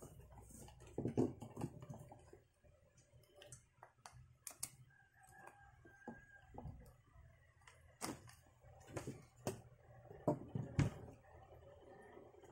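Hands handling the plastic parts of a cordless pressure washer: irregular clicks, knocks and rustles as the coiled hose, the spray-gun body and the 20 V battery pack are picked up and turned over.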